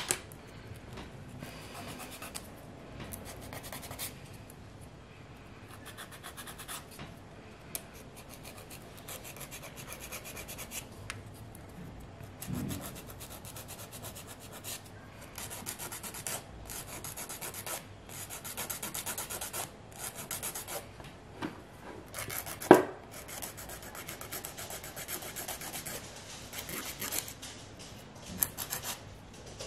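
Hand nail file scraping back and forth over natural fingernails in rapid strokes, roughing up the nail surface and shaping the edges before gel is applied. There is a low thump about halfway through and a sharp knock about two-thirds of the way in.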